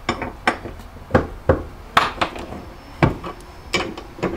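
Irregular sharp clicks and knocks, about a dozen, as bolts and a mounting bracket are handled and fitted by hand into a Jeep Wrangler's cargo floor for a storage platform. The loudest knocks come about two and three seconds in.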